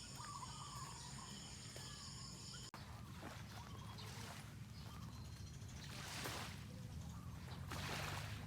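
Outdoor ambience: a steady chorus of insects with short bird chirps, cut off abruptly about a third of the way in. After the cut comes a soft hiss of outdoor noise that swells twice near the end.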